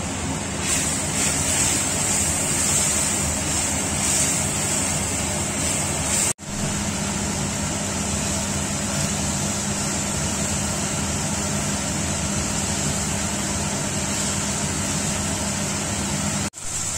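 Spice masala of onion, ginger-garlic juice and powdered spices sizzling and bubbling in hot oil in a stainless steel kadai as it is stirred with a wooden spatula, over a steady low hum. The sizzle is strongest in the first few seconds, and the sound cuts out briefly twice, about six seconds in and near the end.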